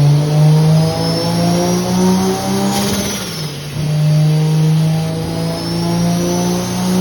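Turbocharged Toyota 2JZ inline-six in a BMW accelerating hard, with a high turbo whistle rising alongside the engine note. About three seconds in, the throttle closes or a gear changes: the turbo flutters briefly and the pitch drops. The engine then pulls again, rising steadily with the whistle.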